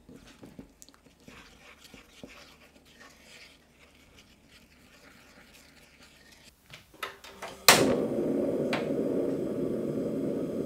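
A small wooden spoon stirs and scrapes a thick soy-and-syrup sauce in a small ceramic bowl, with faint light taps. Near the end comes a sharp loud click, and a portable butane gas stove lights with a steady, loud rushing burner noise.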